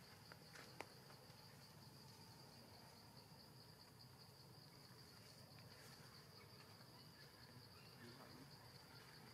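Faint, steady, high-pitched insect drone from the forest, with a couple of small clicks in the first second.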